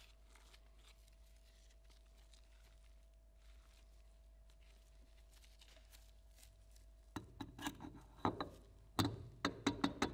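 Faint handling rustle, then from about seven seconds in a run of sharp metal clicks and knocks as a multi-plate clutch unit is worked down onto the release bearing and Hirth teeth of a truck air compressor. The loudest knocks come near the end.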